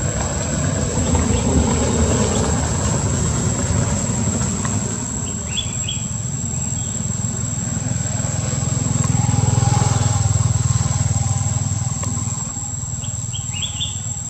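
Outdoor ambience: a steady high insect drone over a low rumble that swells a little past the middle, with a few short rising chirps around the middle and again near the end.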